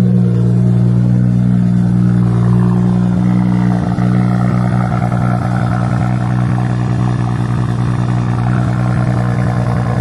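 Straight-piped BMW 540i's B58 turbo inline-six idling steadily right after a cold start, its high idle settling slightly in pitch in the first second.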